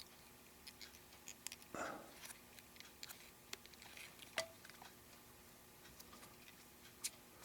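Near silence with faint scattered ticks and clicks and a short rustle about two seconds in, from fly-tying thread being rewrapped off a bobbin at the vise.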